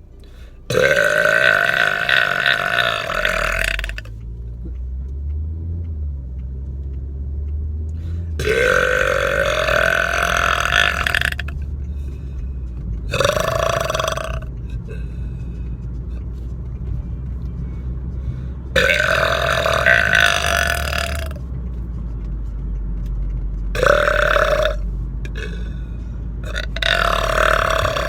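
A man belching loudly, six belches a few seconds apart, the longest about three seconds, with a low steady drone of the moving car underneath.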